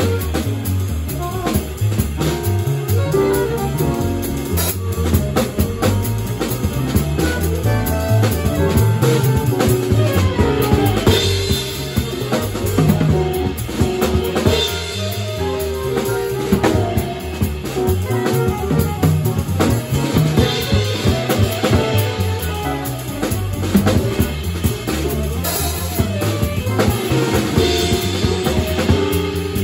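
Live small-band music: saxophone, electric keyboard, bass and drum kit playing together, the drums keeping a busy beat with snare and rim hits under a moving bass line.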